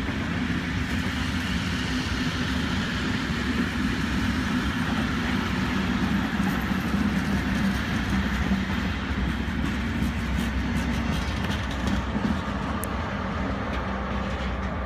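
Passenger coaches of a train rolling past at close range, a steady rumble of wheels on rails with scattered clicks over the rail joints. A locomotive at the rear of the train comes past near the end.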